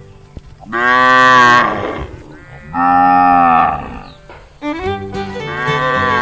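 A cow mooing: two long, loud moos a second or so apart, each dropping slightly in pitch at its end, then a third moo beginning near the end.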